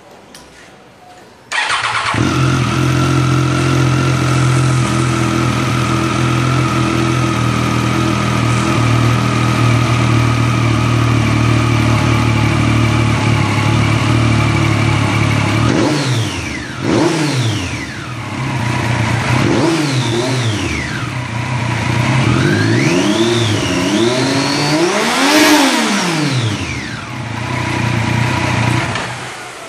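A 2014 Triumph Street Triple's 675 cc inline-three with a new Arrow exhaust starts about a second and a half in and idles steadily. From about halfway it is blipped through several quick revs that rise and fall, with plenty of bass in the exhaust note, and it dies away near the end.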